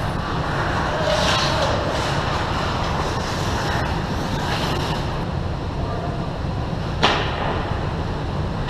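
Ice hockey skate blades scraping and hissing across the ice over a steady low rumble, with one sharp crack about seven seconds in from a puck or stick strike.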